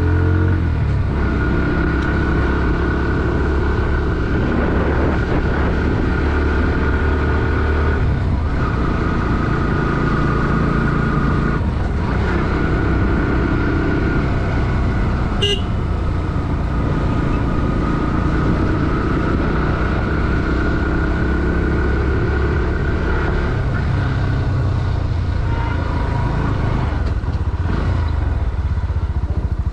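Bajaj Pulsar NS160's single-cylinder four-stroke engine pulling uphill, the revs climbing and dropping back several times as the rider shifts gears. About halfway through there is one brief sharp click.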